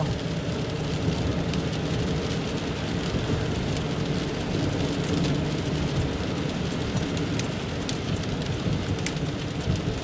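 Steady road and engine noise heard inside a moving car's cabin, with a couple of faint clicks near the end.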